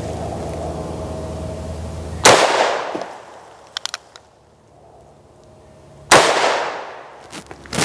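Two shots from a Ruger Blackhawk .357 Magnum single-action revolver, about four seconds apart, each a sharp crack with a ringing tail, with a few faint clicks between them.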